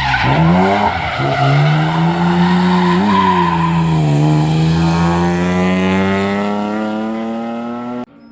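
Race car engine driven hard with its tyres squealing. The pitch drops sharply at the start, climbs, dips once more as it changes gear, then rises steadily under acceleration until the sound cuts off abruptly near the end.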